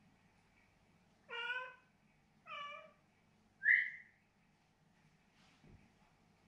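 Cat meowing twice, about a second apart, then a shorter, higher call that rises in pitch and is the loudest of the three. A faint low thud follows near the end.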